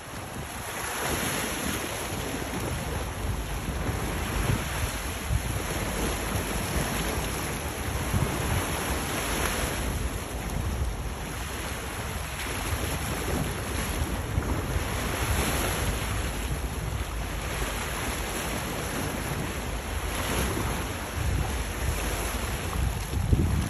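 Wind buffeting the microphone over the rush of choppy sea water, a steady noise that swells and eases every few seconds.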